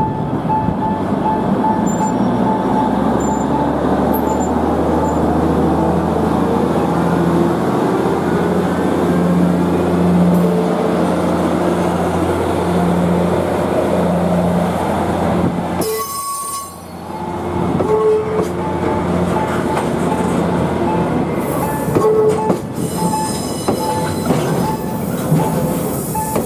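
Freight train hauled by an EF81 electric locomotive running past, its steel wheels squealing against the rails with a steady high squeal over a continuous rumble. The sound drops away briefly about 16 seconds in, then picks up again.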